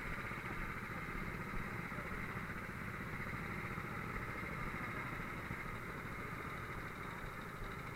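Kart engines running steadily, an even mechanical hum with no revving.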